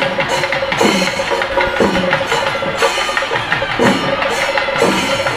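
Drum-led percussion music: a deep drum struck about once a second, each stroke dropping in pitch, over a fast, even tapping rhythm.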